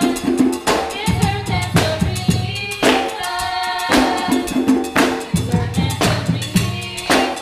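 Live African-style hand drumming in a layered polyrhythm, with heavy accented strokes about once a second and quicker strokes between, and women's voices singing over it.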